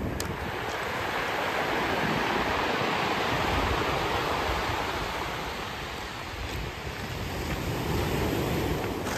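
Ocean surf washing up a cobble beach, with a steady rushing hiss. One wave swells in over the first few seconds and eases off, then another builds near the end.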